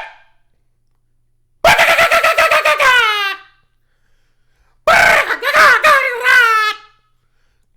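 Beatboxer's pitched vocal effects: two high, rapidly pulsing voiced phrases of about two seconds each, one starting about a second and a half in and one near the middle, each sliding down in pitch as it ends.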